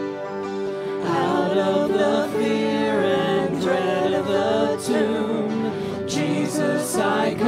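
Church worship band playing a hymn: strummed guitars and keyboard, with a group of singers coming in about a second in.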